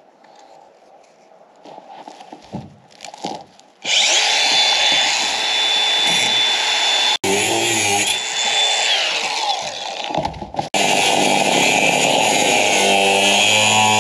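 Cordless angle grinder with a cut-off wheel cutting through steel rebar: a harsh grinding with a high steady whine over it. It starts about four seconds in, after a few light handling knocks, and drops out very briefly twice.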